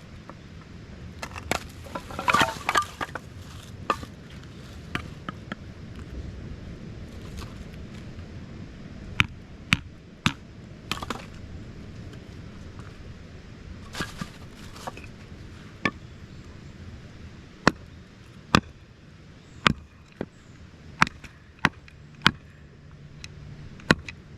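Repeated sharp chopping knocks of a tool striking wood, spaced unevenly, with a loud flurry about two seconds in and roughly one knock a second near the end.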